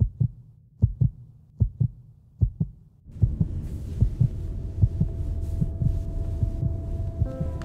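Slow heartbeat sound effect: paired low thumps, about one pair every 0.8 seconds. About three seconds in, a low rumbling drone joins under the beats, and a held musical tone comes in near the end.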